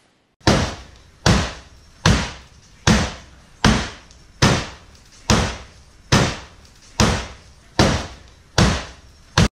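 Steady hammer blows on the steel door of a stripped BMW E36 sedan, about a dozen strikes roughly one every 0.8 seconds, each dying away quickly.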